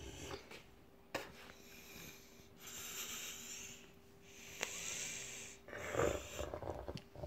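A dog snorting and huffing hard through its nose while tugging on a bone, in several long noisy breaths, with a couple of sharp clicks and rougher, louder sounds near the end.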